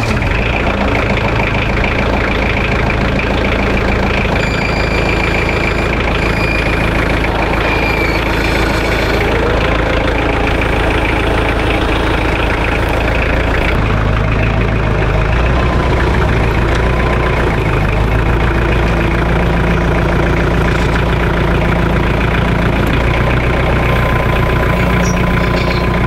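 Kioti compact tractor's diesel engine running steadily at low revs.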